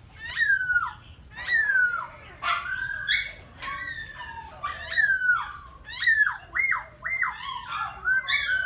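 Small miniature pinscher (phốc hươu) dog whining and yelping over and over: high-pitched calls that slide downward, about one a second, becoming quicker and more wavering near the end.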